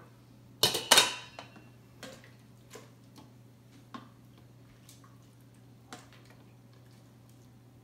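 Spoon knocking against the stainless steel inner pot of an Instant Pot while stirring: two loud clattering knocks about a second in, then a few faint scattered taps.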